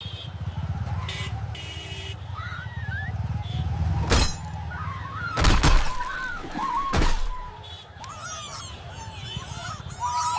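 A crash: a low engine-like rumble broken by three sharp smashing impacts with breaking, about four, five and a half and seven seconds in, the middle one loudest, with high wavering squeals throughout.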